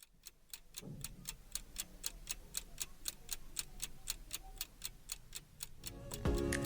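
A clock ticking steadily, about four ticks a second; music comes in near the end.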